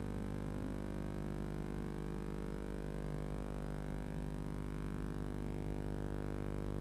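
Steady electrical mains hum with a buzz in the nest box camera's audio, a stack of fixed tones that does not change.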